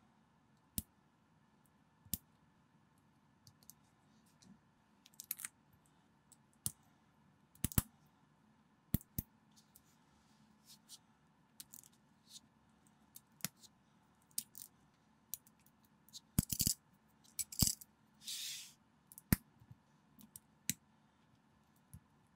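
Small plastic LEGO-compatible bricks being handled and pressed together: scattered sharp clicks of pieces snapping on. A quicker run of clicks comes near the end, followed by a short rustle.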